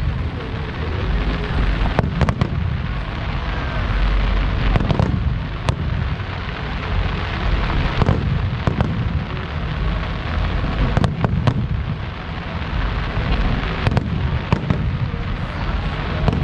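Aerial fireworks display: sharp bangs of shells bursting, some in quick clusters, over a continuous rumble and crackle of further bursts.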